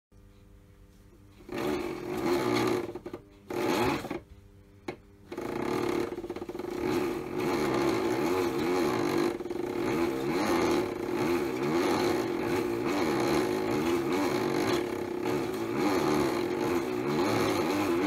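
Small electric motor of a modified toy washing machine driving its drum, which holds water and a single item. It starts and stops in short bursts for the first few seconds, then runs continuously with a whine that wavers up and down in pitch as the drum turns.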